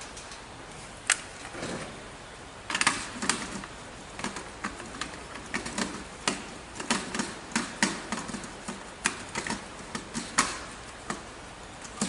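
Plastic smoke detector head being pressed onto its mounting base and twisted to lock in place, plastic clicking and scraping on plastic. A single sharp click about a second in, then a fast, irregular run of clicks from about three seconds in until near the end.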